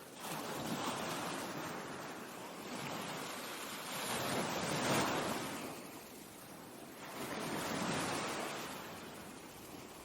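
Ocean surf: waves breaking and washing up, the rush of water swelling and fading three times, loudest near the middle.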